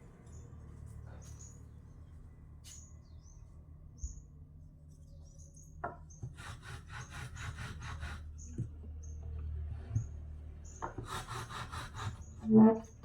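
A hand tool working wood in two runs of quick back-and-forth strokes, about five a second, with a sharp knock near the end. A bird chirps repeatedly throughout, over a low steady hum.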